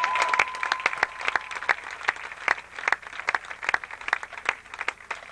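Audience clapping and applauding, thinning out and dying away near the end. Over the first second and a half a single held tone sounds above the claps.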